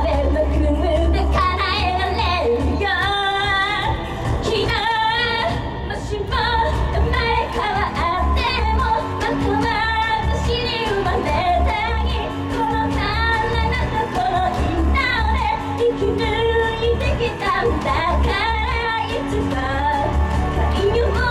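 A female vocalist sings a J-pop idol song live into a handheld microphone over a backing track with a pulsing bass beat, heard through the venue's PA.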